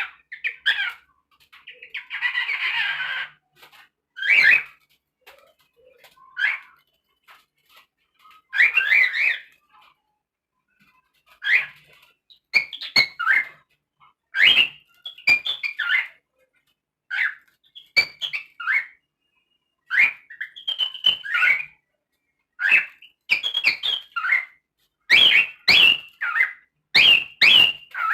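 Cockatiel giving short chirps and whistled calls in quick bursts, with one longer harsh call about two seconds in; the calls come closer together near the end.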